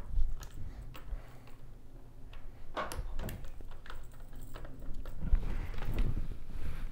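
Vicis ZERO1 football helmet being handled: a few sharp clicks and knocks as it is worked on, then low thumps and rustling as it is lifted and pulled down over the head near the end.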